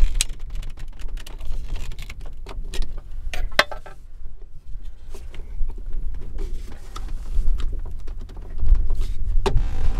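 Scattered small clicks and knocks of hand work on a circuit breaker: a screwdriver turning a wire terminal screw, then the breaker being pressed into its enclosure. A steady low rumble runs underneath, and there is a sharper knock near the end.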